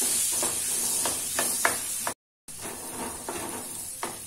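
Diced carrots sizzling in hot ghee in a non-stick kadai while being stirred, with a few short scrapes and knocks of the spoon against the pan. The sound cuts out briefly just past the middle.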